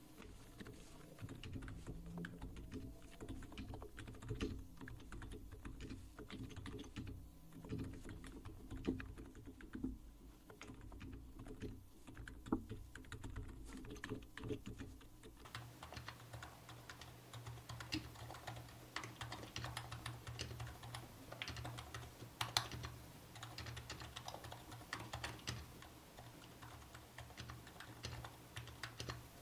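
Typing on a Tofu EC custom keyboard with 45 g Topre electrostatic-capacitive switches, their sliders lubed and fitted with 1 mm O-rings, under FBB Retro keycaps. A continuous run of keystrokes with a few louder ones. About halfway through the low background hum drops away and the strokes sound brighter.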